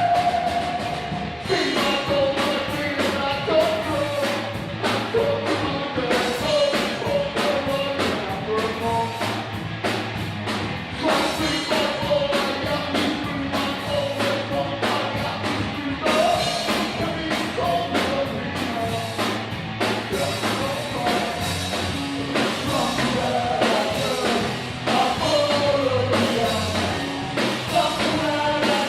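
Rock band playing with a singer, drum kit hits running steadily under the vocal line.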